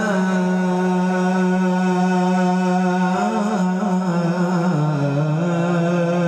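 A male qari reciting the Quran melodically into a hand-held microphone, drawing out one long held note that steps down in pitch twice before it breaks off at the end.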